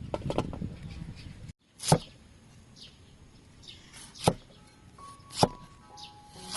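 Knife chopping on a cutting board: a short run of rapid clatter that cuts off suddenly, then four sharp single strikes spaced a second or two apart.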